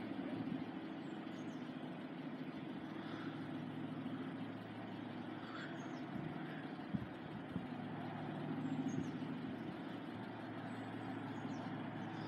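A steady low engine hum, with a couple of faint knocks about seven seconds in.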